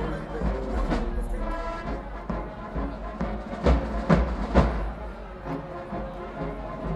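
Marching band playing, with held brass chords over drums; three loud drum hits come in quick succession about halfway through.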